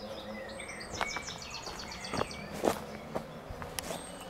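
Woodland birds singing, with one rapid run of high, evenly spaced notes about a second in and scattered chirps. A few sharp clicks or cracks stand out, the loudest two to three seconds in.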